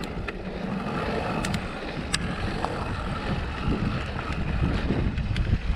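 Electric mountain bike riding over a dirt trail: steady rolling noise and rumble from the tyres and frame, with a few sharp clicks of rattle, and wind buffeting the microphone.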